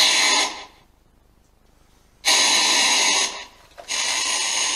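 FCD04 ghost box sweeping through radio stations, putting out loud bursts of hissing static about a second long that cut in and out sharply. The first burst ends just after the start, then there is a quiet gap of over a second, then two more bursts, the last one quieter.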